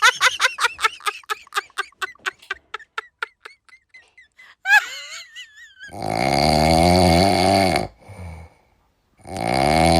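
A person snoring loudly in long rasping snores, with a short weak one in between. The snoring is preceded by a quick string of short vocal pulses that die away over about four seconds, then a brief wavering squeak.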